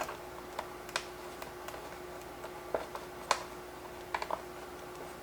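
Scattered light clicks and taps of small bolts, washers and the plastic windshield being handled while the screen is fastened to the motorcycle, the sharpest a little past three seconds in and a quick run of clicks near four seconds. A faint steady hum sits underneath.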